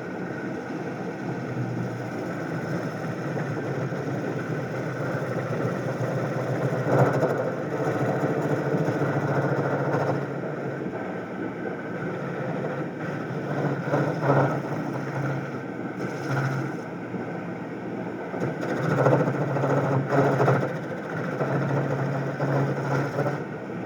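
A motor running steadily, with a low hum that comes and goes and louder swells about 7, 14 and 19 to 21 seconds in.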